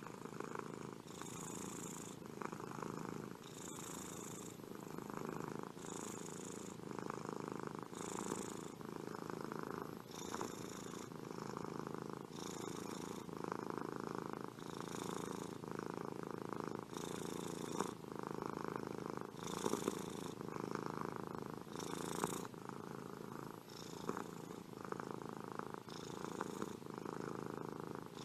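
Domestic cat purring steadily, swelling and easing in a slow, regular breathing rhythm.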